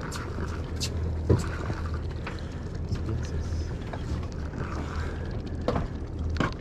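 Steady low rumble of a boat's idling engine, with a few short, sharp clicks and splashes while a spinning reel is cranked against a hooked fish.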